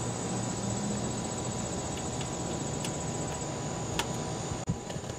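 A few faint clicks as plastic push-pin retainers are pressed by hand into a car's felt trunk-lid liner, over a steady background hiss with a thin high tone.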